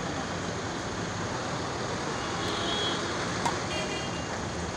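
Steady background noise during a badminton rally, with one light racket tap on the shuttlecock about three and a half seconds in.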